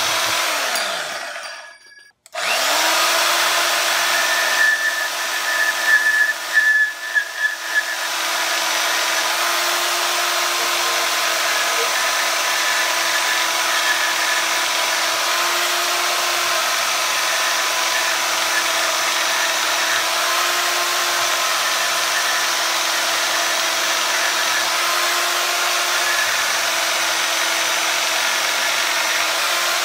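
Bauer 10 amp variable-speed portable bandsaw motor winding down and stopping about two seconds in, then starting again and running with a steady whine while its blade cuts through a wooden board. It is louder and uneven for a few seconds soon after starting, then settles to a steady run with slight dips in pitch as the blade takes the load.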